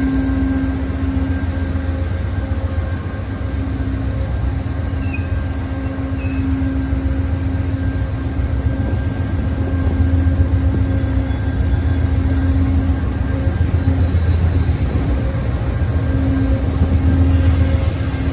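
Amtrak GE P42DC diesel locomotives' V16 engines running with a steady, deep drone and a constant hum, close beside the platform.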